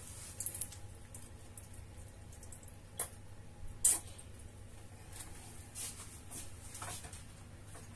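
Crisp lettuce leaves being handled and pulled from a head, giving a few rustles and crunches, with a sharp click about three seconds in and a louder crackling snap just after, over a low steady hum.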